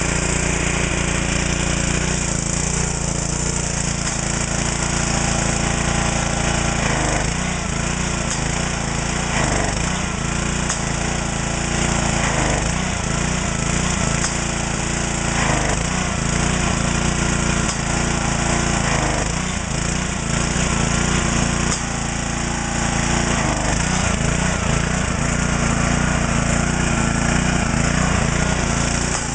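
Excell 2500 gas pressure washer running. The engine note bogs and recovers every two to three seconds as the pump builds pressure and spits: the wand tip is clogged with grit.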